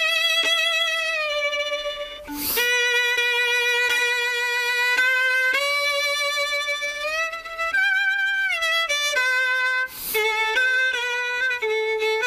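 Solo violin playing a slow melody of long held notes with vibrato, with short breaks between phrases about two seconds in and again about ten seconds in.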